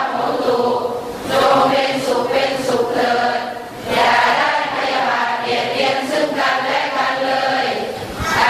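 Many voices chanting Buddhist prayers together in a steady recitation tone, in long phrases broken by short pauses for breath.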